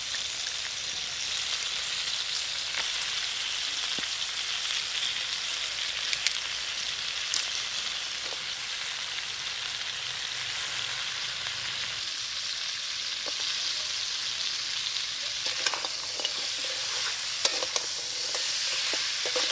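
Crab pieces frying in spiced masala in a wok: a steady sizzling hiss, with a few clicks and scrapes near the end as a spatula stirs the pan.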